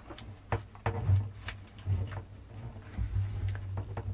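Scattered light clicks and taps as fingers work a metal stabilizer wire loose from the plastic clips of an Amiga 500 Mitsumi keyboard, over a low steady hum.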